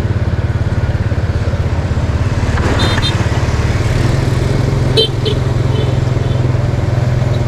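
Motorbike engine running steadily at cruising speed, with a regular low pulsing, over road and wind noise. A few brief high chirps sound about three and five seconds in.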